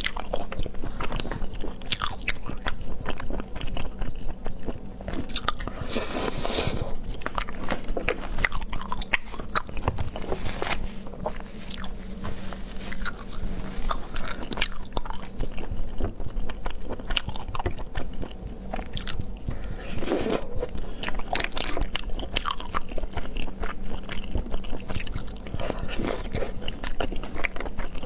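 Close-miked eating of spicy sea snails in chili oil: a dense run of small wet clicks from biting and chewing, broken by a longer rush of noise about six seconds in and again about twenty seconds in.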